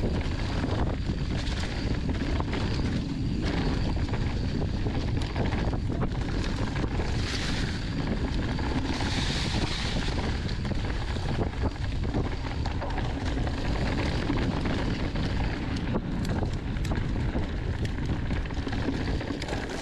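Wind rushing over the camera microphone and knobby tyres rolling over dirt singletrack during a fast mountain bike descent, with scattered small clicks and rattles from the bike.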